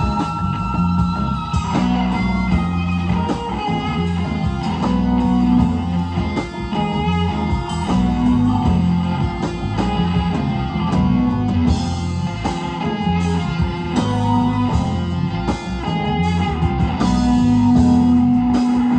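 Live rock band playing a guitar-led stretch of the song, electric guitars over steady bass and drums.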